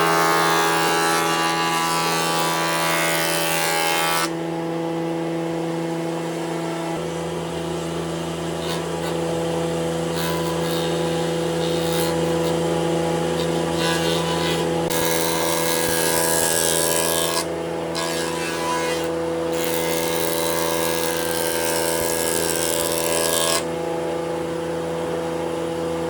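Electric woodworking power tool running steadily at a constant motor pitch, with a hissing cutting noise that drops away and returns several times as it works the wood.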